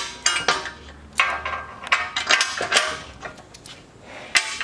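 Irregular metallic clinks and clicks of bolts, washers and nuts being handled and fitted by hand through a steel mounting plate. The clinks come several times in the first three seconds, then once more near the end.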